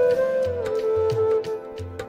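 Background music: a sustained, gliding melody line over a steady low beat.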